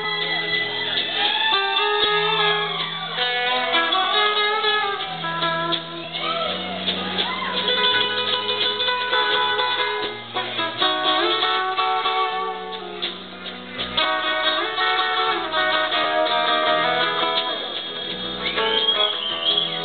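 Guitar playing a melody whose notes often bend in pitch, over low bass notes that change every second or so.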